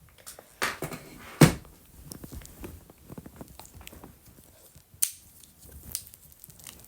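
Handling noise from a phone and its charger being picked up and handled: faint rustling with a few knocks and clicks. The loudest knock comes about one and a half seconds in and another about five seconds in.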